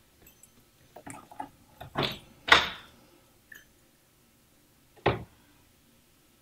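Dorm room door being opened: a run of sharp knocks and rattles, then a single sharp latch click about five seconds in as the lever handle is worked.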